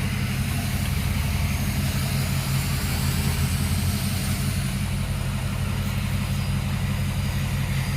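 Truck engine running steadily at a low, even idle.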